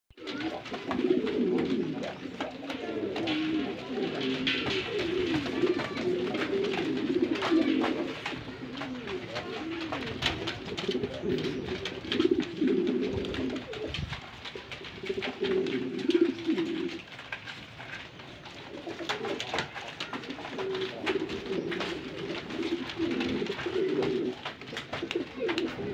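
Fantail pigeons cooing over and over, a low warbling coo in runs of a few seconds with short breaks, and scattered light clicks over it.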